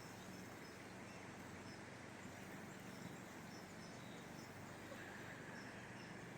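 Faint outdoor ambience: a steady low background hiss and hum, with scattered faint, short, high bird or insect chirps.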